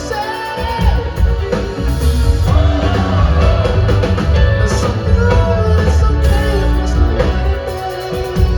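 Rock band playing loud live music, with a voice singing over strong bass.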